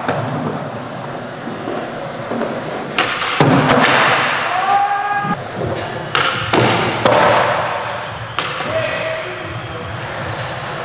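Skateboard wheels rolling on concrete, with several sharp board knocks from pops, grinds and landings, over background music.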